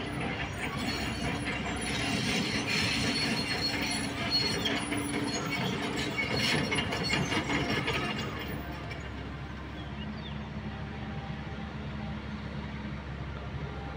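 Tracked excavator travelling, its steel tracks clanking, rattling and squeaking over the engine's steady running. After about eight seconds the track clatter dies away, leaving the engine running on its own.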